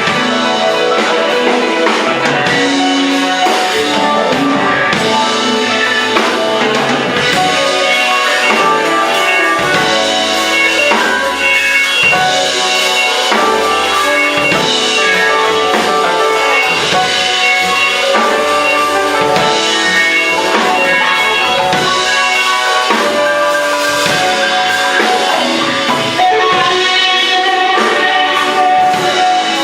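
Live band playing an instrumental passage, with guitar and drum kit at the front of a dense, steady mix.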